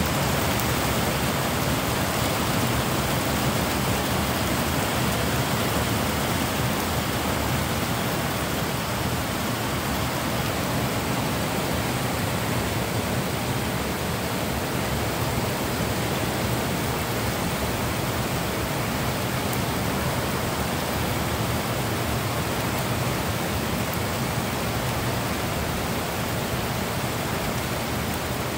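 Heavy rain pouring down steadily: a dense, even hiss of downpour with no thunder.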